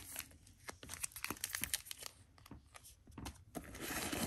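Plastic or paper packaging crinkling as small wrapped items are handled: a run of short sharp crackles that turns into a denser rustle near the end.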